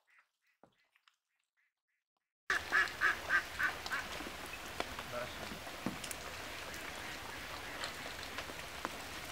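Near silence, then a sudden start of outdoor background, opening with a quick run of about six short animal calls, about four a second, and faint scattered calls and clicks after it.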